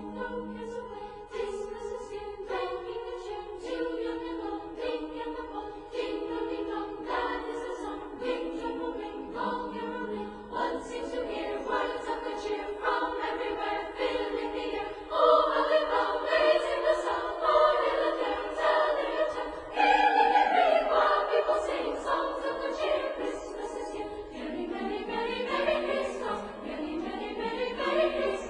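Choral music: a choir singing long held notes, swelling fuller and louder about halfway through.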